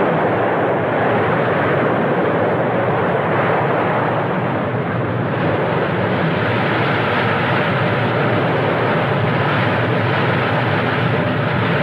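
Steady drone of a ship's engine under a rush of wind and sea.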